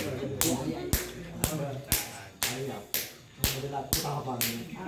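Sharp hand slaps in a steady rhythm of about two a second, with a low voice murmuring between the strokes.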